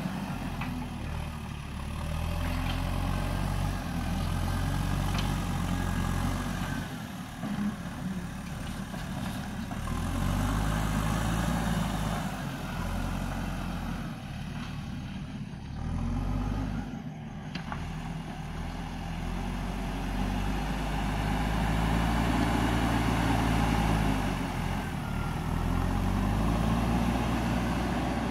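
JCB backhoe loader's diesel engine running under load, its revs rising and falling several times as the front loader pushes into the soil and lifts its bucket.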